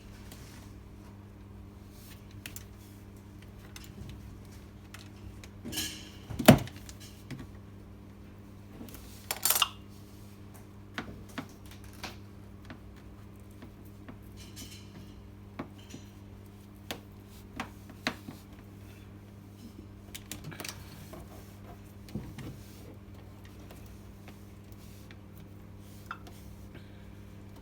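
Scattered clicks and metallic clinks of tools and small parts being handled while a washing machine timer is taken out, with a sharp knock about six and a half seconds in and a short rattle about three seconds later, over a steady low hum.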